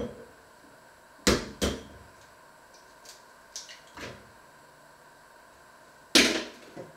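Sharp knocks and clatters of things being handled in a kitchen out of view. There are two knocks about a second in, a few lighter taps in the middle, and the loudest knock near the end.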